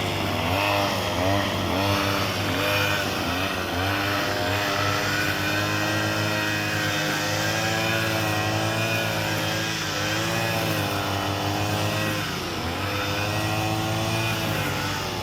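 Lawnmower engine running, its pitch wavering up and down over a steady low hum.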